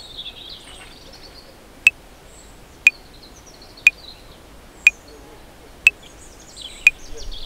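Metronome clicking at 60 bpm, one sharp click a second, starting about two seconds in. Birds chirp in the background near the start and again near the end.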